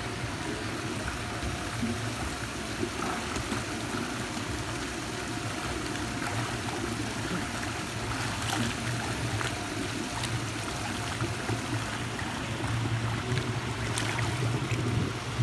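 Steady running, trickling water with a few light splashes, over a low steady hum.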